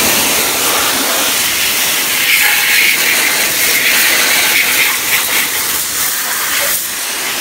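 Garden hose with a metal spray nozzle shooting a strong stream of water onto a Jeep's painted body panels, a steady hiss that stops abruptly at the end.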